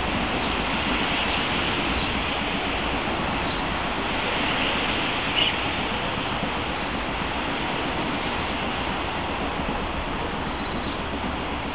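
Heavy rain pouring down in a steady, dense hiss, with one sharper tap about five seconds in.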